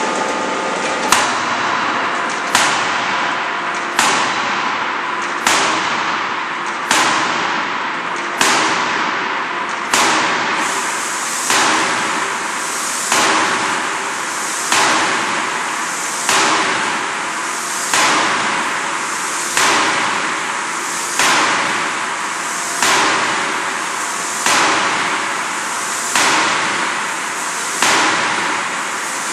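Closed-die forging press repeatedly striking a red-hot workpiece in its dies: a sharp blow about every second and a half, each followed by a fading hiss, over a steady machinery hum.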